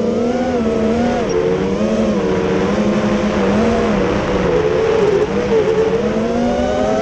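Brushless motors and propellers of a QAV210 racing quadcopter, heard from its onboard camera: a steady whine whose pitch rises and falls as the throttle changes, over a rush of air.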